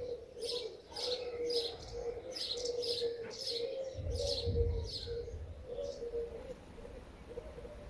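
Birds: a run of short high chirps, about two a second, fading out after about five seconds, over a low warbling coo that goes on throughout. A brief low rumble comes about four seconds in.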